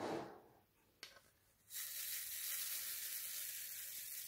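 Small round AB resin diamond-painting drills sliding and rattling in a plastic drill-sorting tray as it is shaken, a steady hiss that starts a little under two seconds in. A brief sound and a click come before it.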